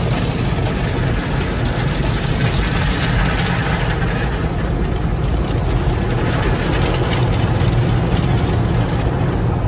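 Automatic car wash machinery running, heard from inside the car: a loud, steady rushing noise over a low hum, swelling slightly a few seconds in.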